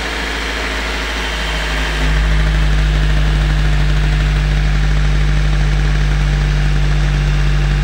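Daihatsu Gran Max engine idling just after its first start following a rebuild with new pistons, piston rings and bearings. It runs steadily and smoothly, without the earlier rattle, and gets louder from about two seconds in.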